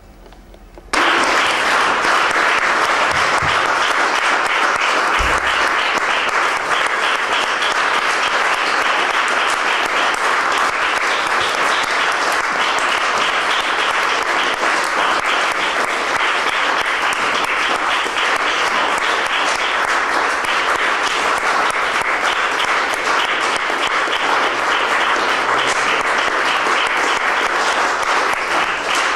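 Audience applauding, with one person clapping close by. It starts suddenly about a second in and carries on steadily.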